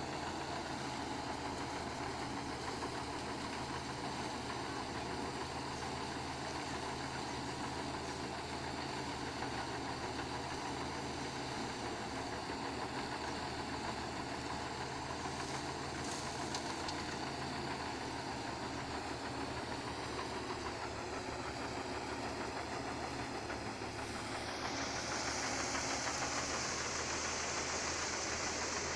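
Rice threshing machine running steadily, its engine and threshing drum working as rice sheaves are fed in. Near the end it grows a little louder and hissier.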